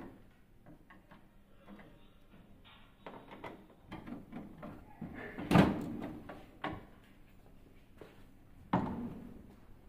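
Screwdriver working the screws of a Canon iR 2202 copier's side cover and the cover panel being pulled off and handled: scattered clicks and rattles, a loud knock about halfway through and another sharp knock near the end.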